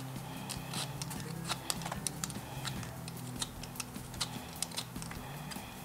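A carrot being peeled by hand: a run of short, quick scraping strokes at an irregular pace, a few a second.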